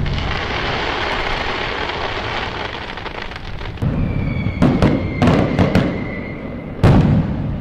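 Fireworks going off: a dense run of crackling, then a steady high whistle lasting a few seconds, with several sharp bangs over it and a loud bang near the end.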